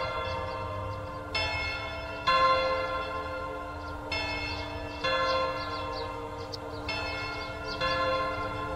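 The Kurashiki Station clock tower's bells chiming a slow tune. There are six struck notes, in pairs about a second apart, and each note rings on and fades before the next.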